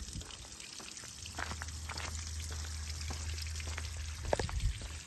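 Water trickling and dripping onto wet pavement, with a faint steady low hum starting about a second in.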